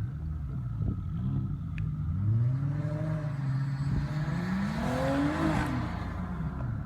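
Car engine revving up and down during a snow drift, its pitch rising and falling several times and climbing highest about five seconds in before dropping, with a rushing hiss at the peak.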